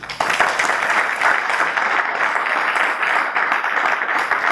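Audience applause, breaking out suddenly and keeping up a steady, dense clapping.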